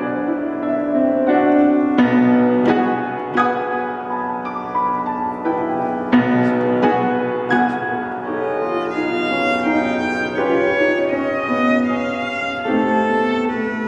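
Piano trio playing live: violin and cello bowing over piano. Struck piano notes mark a steady pulse through the first half, then the strings carry long held notes.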